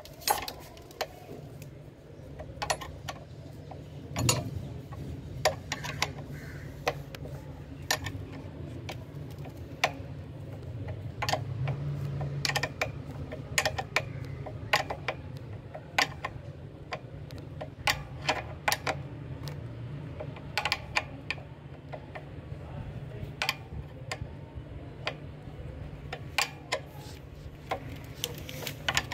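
Metal spanners working a bolt on a water pump's pipe flange: irregular sharp metallic clicks, about one or two a second, as the spanner is stroked back and forth, over a steady low hum.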